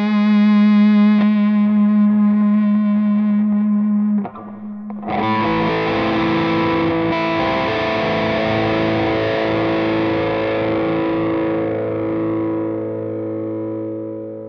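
Gibson Les Paul Goldtop electric guitar through a Tonebones Texas Overdrive pedal, holding one long sustained note, then striking a last chord about five seconds in that rings out and slowly fades away.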